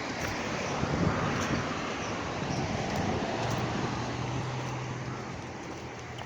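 A motor vehicle passing on the road, its engine hum steady and then dying away near the end, over a rush of wind noise on the microphone.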